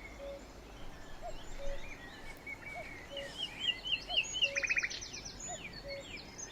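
Birds chirping and singing over a faint steady hiss, with a lower two-note call repeating about every second and a half and a quick trill a little past the middle.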